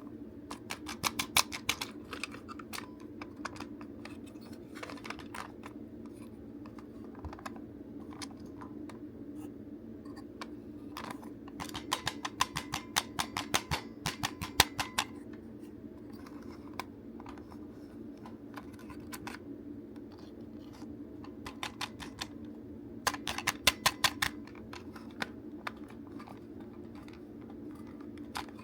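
Clusters of rapid small clicks and light scratching from hand work on the plastic parts of a DX Buggle Driver II toy belt being taken apart, over a steady low hum. The clicking comes in three runs: near the start, in the middle, and about four-fifths of the way through.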